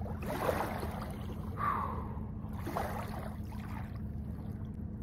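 Small lake waves lapping and gurgling against the ice at the shoreline, over a steady low rumble of wind on the microphone.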